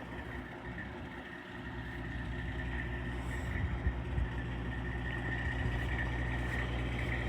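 Heavy vehicle engine running steadily, growing gradually louder as it works near the mobile home being moved into place.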